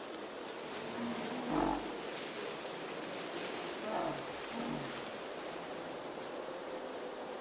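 Blizzard wind blowing steadily, with brief wavering moans rising over it about a second and a half in and again around four seconds.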